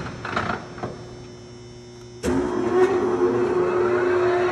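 Kingston HL2500 engine lathe: a few clunks of the headstock gear levers being shifted to a higher spindle speed, then about two seconds in the spindle drive starts and runs up, its whine rising in pitch as the chuck comes up to speed.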